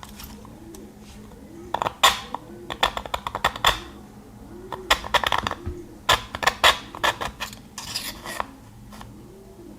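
Steel pocket-knife blade drawn repeatedly through the fixed carbide slot of a pull-through knife sharpener, making quick, sharp rasping strokes in four bursts. The blade is blunt and is being ground on the coarse stage.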